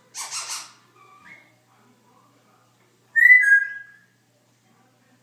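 Congo African grey parrot making a short breathy, hissing noise, then about three seconds in a loud whistle of two notes, the second slightly lower.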